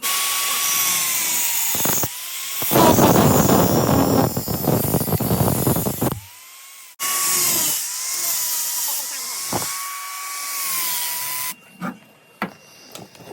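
Power cutting tool cutting sheet-metal stock. Its motor whine dips in pitch as it bites, with a louder, harsher stretch of cutting in the first half. It stops briefly, runs again for a second cut, and a few sharp taps follow near the end.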